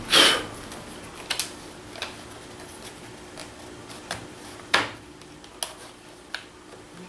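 Light clicks and taps of thin white spacer strips being picked up and set down on an MDF routing jig. There is a louder scraping rustle right at the start and a sharper knock a little before five seconds in. The router is not running.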